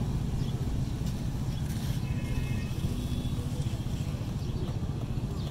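Steady low rumble of idling motorcycle engines, close by, in traffic held up at a closed railway crossing gate.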